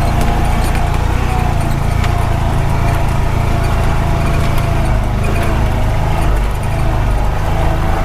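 Honda Pioneer 520 side-by-side running steadily as it drives along a dirt road, its single-cylinder engine's drone mixed with scattered clicks and rattles.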